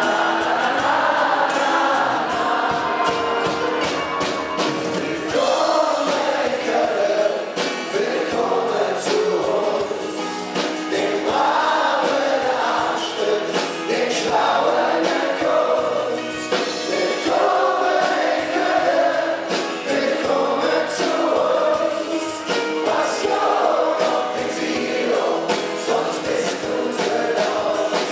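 Live pop-rock band performing: several male voices singing together in a choir-like chorus over acoustic guitars, drums and bass guitar.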